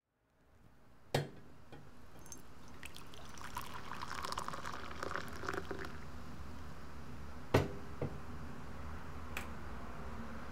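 Coffee poured from a glass carafe into a ceramic mug, a fluttering pour lasting a couple of seconds. Sharp knocks of things set down on the counter, a light one about a second in and the loudest one shortly after the pour.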